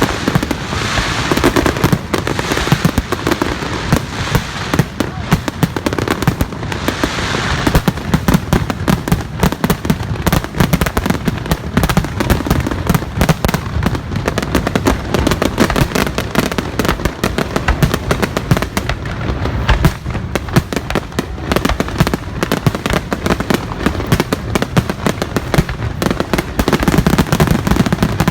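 Fireworks going off in a dense, unbroken barrage of many rapid bangs and crackles.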